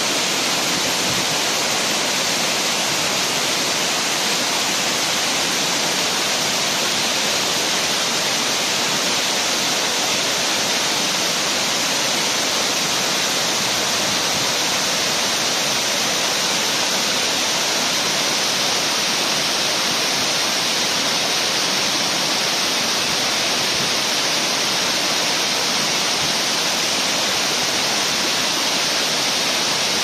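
A tall waterfall and the rocky stream below it, rushing in a steady, unbroken hiss of falling water.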